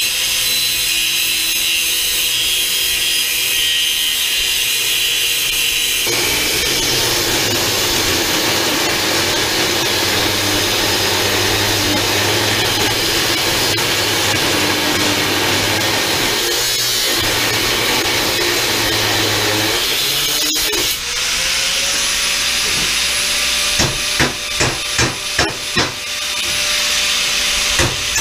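Angle grinder with a cut-off wheel cutting notches into steel channel, a loud steady grinding hiss. About three-quarters through the cut eases off and the motor's whine climbs as the wheel spins free, then a quick run of short bites into the steel follows near the end.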